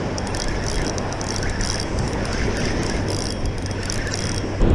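Penn spinning reel being cranked to bring in a hooked pompano through the surf, its whir rising and falling with each turn of the handle, over steady wind rumble on the microphone and washing waves.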